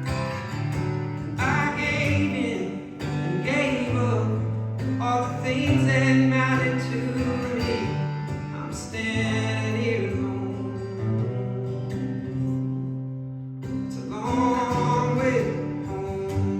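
Live acoustic song: a strummed acoustic guitar under held bass notes, with a gliding lead melody that comes in phrases over it.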